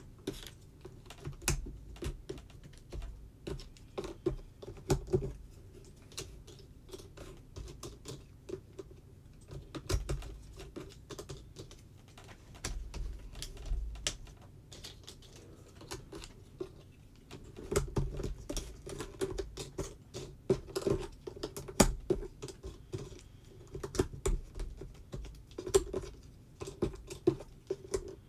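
Pieces of a 300-piece 3D jigsaw puzzle being handled and pressed into place on a tabletop: irregular light clicks and taps, several a second.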